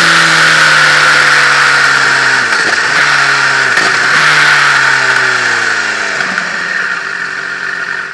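Motorcycle engine heard from the bike with a steady rush of wind noise, its pitch falling as it slows, with three brief breaks in the engine note as it changes down for a bend. The sound fades slightly towards the end.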